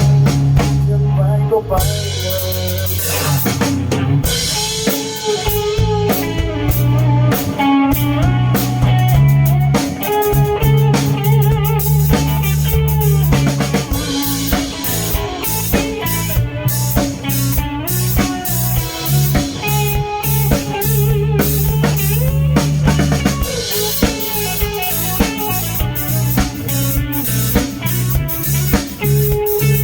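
Rock band playing an instrumental passage with no singing: drum kit keeping a steady beat with bass drum and rimshots, bass guitar, and guitar carrying a bending melody line.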